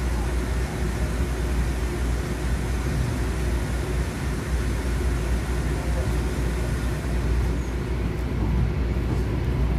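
Steady running noise heard inside a moving light rail car: a low, even rumble of the car's motors and wheels on the rails, with no distinct knocks or signals.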